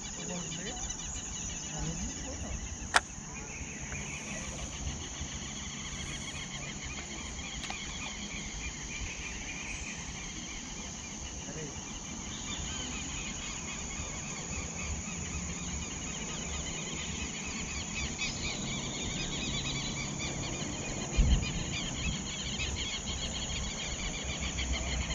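Insects chirping in a dense, fast-pulsing chorus, over a low rumble. There is a sharp click about three seconds in and a low thump about twenty-one seconds in.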